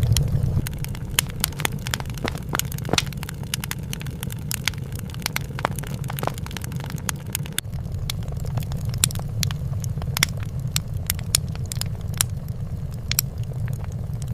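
Fireplace fire crackling: irregular sharp pops and snaps, several a second, over a steady low rumble.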